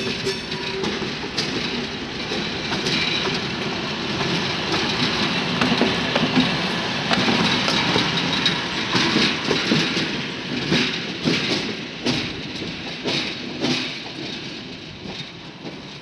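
Diesel shunting locomotive passing close by, its wheels clicking over the rail joints. It grows louder as it nears, is loudest around the middle, and fades as it moves away.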